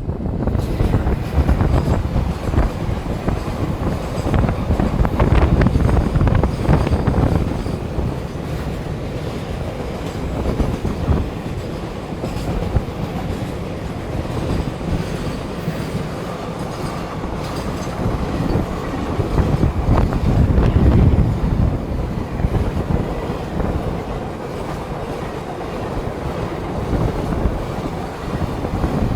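Passenger train running at speed, heard from aboard: a steady rumble of wheels on track with many rapid knocks. It swells louder a few seconds in and again about two-thirds of the way through.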